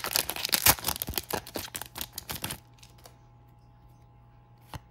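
Foil trading-card pack wrapper crinkling and tearing open in a rapid crackle, which stops about two and a half seconds in; then a few faint ticks as the cards are handled.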